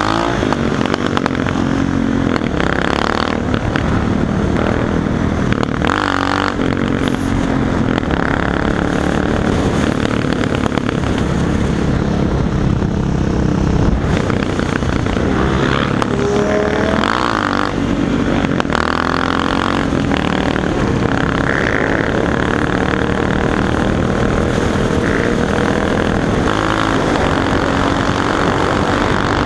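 Motorcycle engines running while riding in a large group, heard on board with the rider's own engine close by. The revs rise and fall, and a steady rush of wind noise runs underneath.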